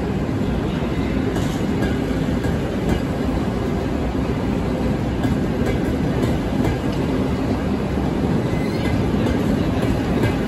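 Passenger train running steadily along the line, heard from on board as an even rumble of wheels and track with a few faint clicks.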